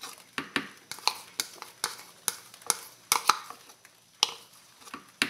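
Metal spoon scraping and tapping against a small bowl while scooping out thick, nearly set chilled cream into a stand mixer's bowl: a run of irregular clicks and short scrapes.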